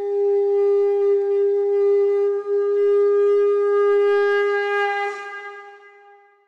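One long note blown on a wind instrument, held at a single steady pitch for about five seconds and then fading away near the end.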